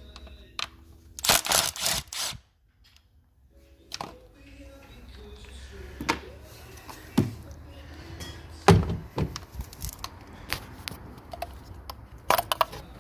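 Clicks and knocks of hand tools on metal as the MG3's 8 mm coil pack bolts are undone. A loud rattling stretch comes about a second in, then scattered sharp knocks, the loudest about nine seconds in.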